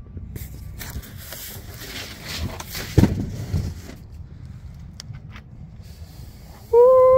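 Cardboard shipping-crate top being lifted off: cardboard scraping and rustling, with a thump about three seconds in and a few light clicks after. Near the end comes a loud, held vocal call lasting about a second that falls in pitch as it ends.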